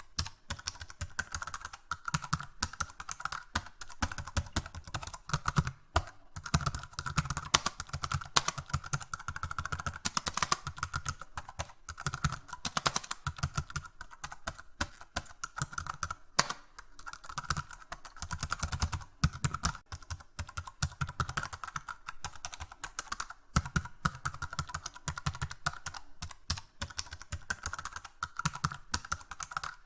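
Fast, continuous typing on a keyboard: rapid key clicks with a few brief pauses.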